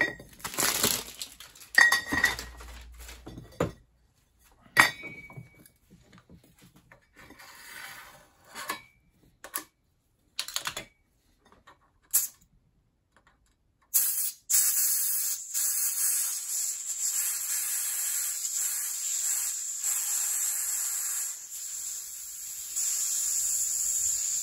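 Metal clinks and knocks as aluminium nitrous oxide cream charger flasks are handled against the vise. A little past halfway a steady, high hiss starts as leftover nitrous oxide escapes from a flask whose valve is held open with a small screwdriver.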